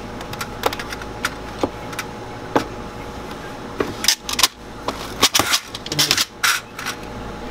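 Antique candy chopper cutting a rope of hard candy into small pieces: sharp, irregular clicks and snaps with pieces clattering on the metal, sparse at first and coming thicker and louder from about halfway through.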